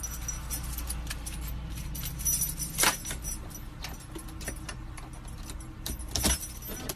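Keys on a key ring hanging from a car's ignition jangling and clicking as a monkey fumbles with them, in irregular clinks with a few sharper ones, over a steady low hum.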